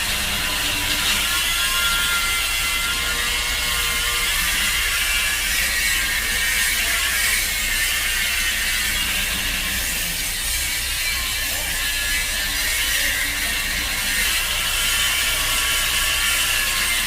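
Bench circular saw running steadily, giving a continuous high whine over a low hum.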